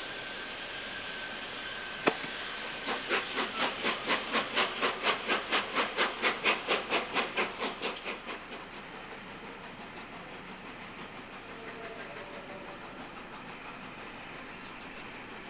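Steam locomotive 60163 Tornado, a three-cylinder Peppercorn A1 Pacific, hissing steam, then a sharp clank. It then moves off with a run of even exhaust chuffs, about three a second, which build and then fade away after about five seconds.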